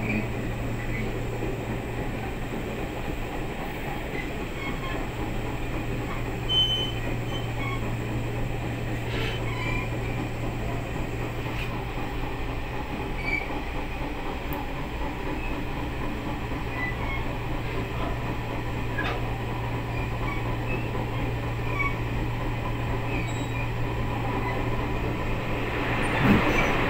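Passenger train running along the line, heard from inside the carriage: a steady rumble of wheels on rail with a constant low hum. It grows louder near the end as the train reaches a tunnel mouth.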